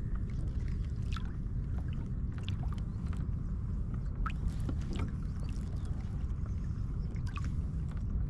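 Water lapping and splashing against a kayak hull, with scattered small splashes and ticks over a steady low rumble.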